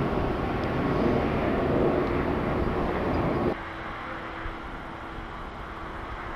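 Steady jet aircraft roar that cuts off abruptly about three and a half seconds in, leaving a quieter background with a steady low hum.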